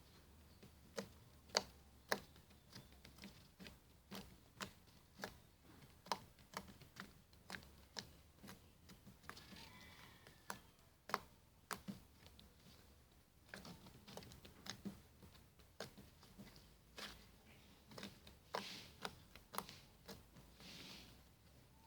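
Slime being played with, giving faint, irregular clicks and pops, about two or three a second, as the air bubbles in it burst.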